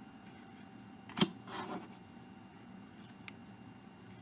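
Quiet handling of trading cards: a sharp tap about a second in, followed by a short soft rustle, and a faint tick near the end.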